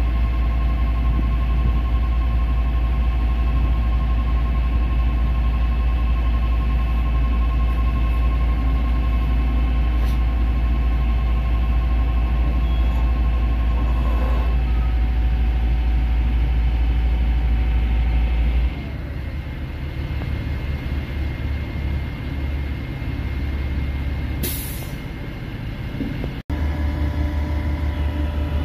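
Caterpillar C7 six-cylinder diesel engine running steadily, a deep rumble with a faint steady whine above it. About two-thirds of the way through, the sound changes abruptly to a somewhat quieter engine sound, and a short burst of air hiss follows a few seconds later.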